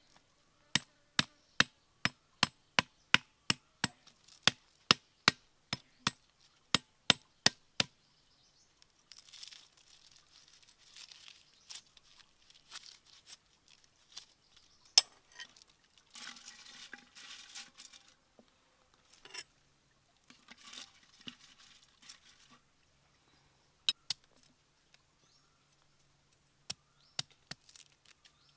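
A large cleaver chopping stalks of lemongrass on a flat stone in a fast, even run of about three chops a second for some seven seconds. Then comes a long stretch of crackly rustling and tearing as fresh greens are handled. Near the end there are a few scattered knife cuts as ginger is sliced against the rock.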